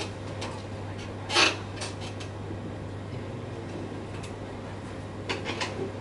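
Quiet room tone: a steady low hum with scattered small clicks and knocks, and one louder short noise about a second and a half in.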